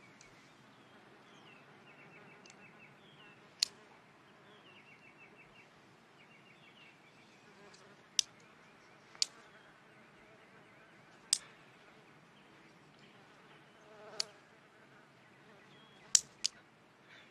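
A housefly buzzing faintly back and forth, with wooden chopsticks clacking shut seven times as someone snaps at it. The last two clacks come in quick succession near the end.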